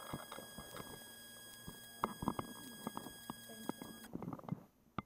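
Faint scattered clicks and small knocks of handling, over a faint steady high electronic whine that cuts off about four seconds in, then a sharp click near the end.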